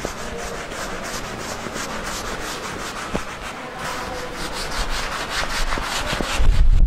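Blackboard duster wiping chalk off a blackboard in repeated quick back-and-forth strokes, a scratchy rubbing hiss. Near the end a loud low rumble comes in.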